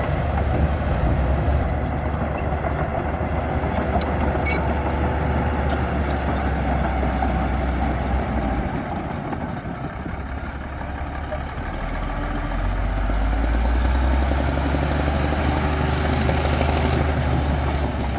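Komatsu D60P bulldozer's diesel engine running under work. It eases off about halfway through and builds up again over the last few seconds.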